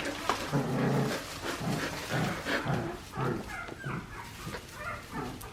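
Four-week-old Australian Shepherd puppies yipping and whimpering: many short, high calls in quick succession, some sliding in pitch.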